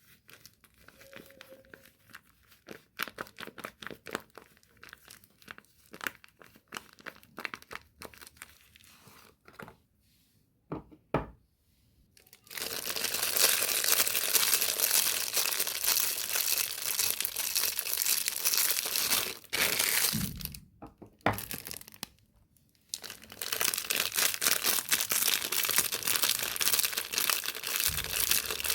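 Soap packaging being unwrapped by hand: scattered crinkles and crackles for the first dozen seconds, then long runs of continuous crinkling and tearing of the wrappers, broken by a pause of about three seconds.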